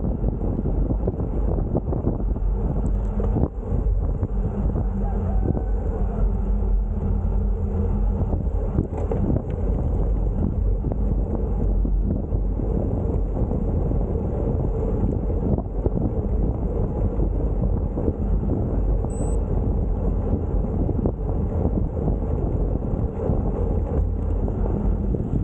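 Wind buffeting the camera's microphone, a steady low rumbling noise with no breaks.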